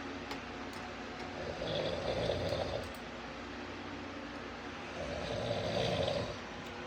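A man snoring in slow, regular breaths, with two rasping snores about three and a half seconds apart.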